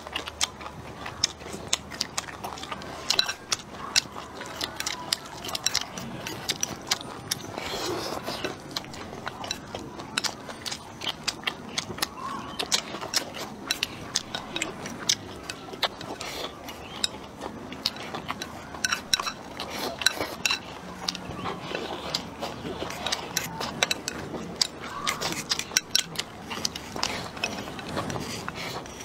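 Close-up eating sounds: chewing and biting of stir-fried dried shrimp and rice, with frequent sharp clicks of chopsticks against a ceramic rice bowl.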